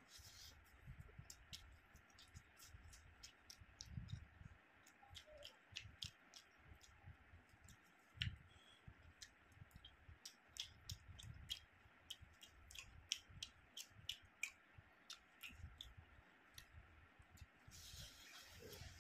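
Faint eating sounds of rice and curry eaten by hand: irregular wet clicks and smacks of chewing and of fingers working the rice, a few a second, over soft low thumps. A short rustle near the end.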